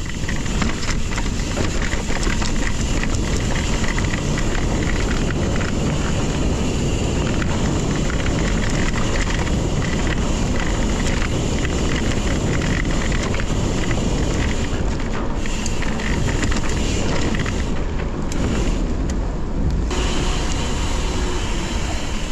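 Mountain bike ridden at speed on a trail: wind buffeting the microphone over tyre and drivetrain noise, with a continuous rattle from a broken bottle cage on the frame.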